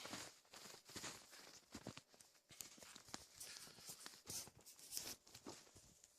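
Faint footsteps crunching on snow, an irregular run of soft steps.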